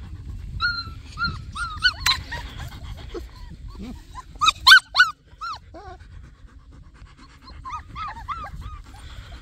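German shepherd puppies whining and yipping in short, high, squeaky calls, coming in three bunches, the loudest cluster of sharp yips about halfway through.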